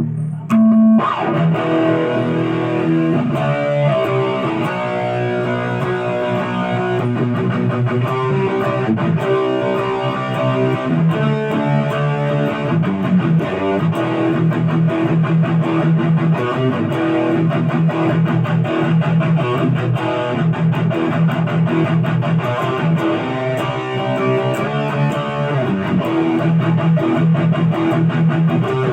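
Busker's Les Paul-style electric guitar played through an amplifier, a continuous run of picked notes and chords as a sound test of the instrument.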